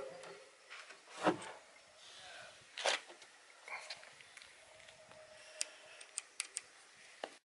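A boat's detachable spoked wheel being taken off by its quick-release hub: two knocks as the wheel comes off the hull, then a quick run of short sharp clicks near the end as the release button in the hub is worked.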